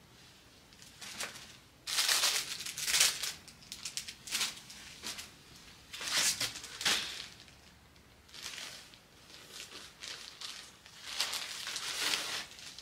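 Plastic packaging crinkling and rustling in several bursts as clothes are handled and unwrapped from a plastic mailer bag, the loudest burst about two seconds in.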